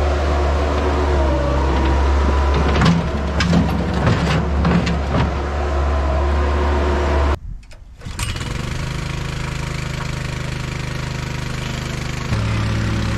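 Bobcat S185 skid steer's diesel engine running steadily, with a few seconds of clattering as its bucket works concrete rubble. About halfway through the sound drops out briefly, then an engine runs steadily again, and its tone steps up near the end.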